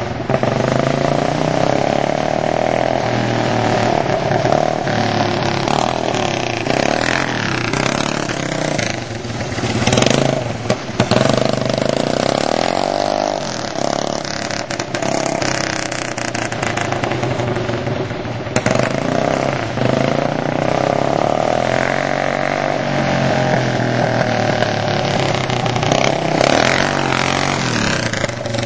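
Go-kart's Honda GX200 single-cylinder four-stroke engine running hard, its pitch rising and falling again and again as the throttle is opened and let off.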